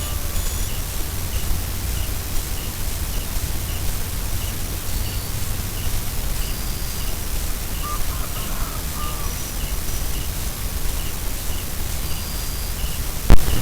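Outdoor ambience: a steady low rumbling noise, with a short high chirp repeating about twice a second and a few brief bird-like calls. One sharp knock near the end is the loudest sound.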